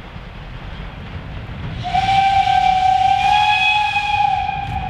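Steam whistle of the OKz32-2 steam tank locomotive blowing one long blast that starts about two seconds in with a rush of steam hiss, its pitch rising slightly, over the low rumble of the approaching train.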